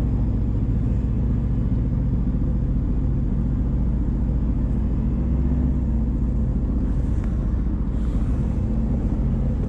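Personal watercraft (jet ski) engine idling at low speed, a steady low rumble that holds even throughout.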